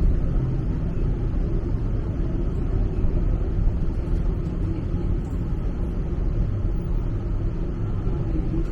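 Steady low rumble of a road vehicle in motion, with no distinct knocks or tones.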